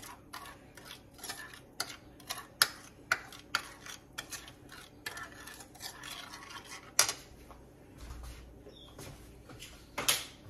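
Metal spoon clinking and scraping against a ceramic plate as it stirs an oily spice paste, in irregular taps with a few sharper clinks.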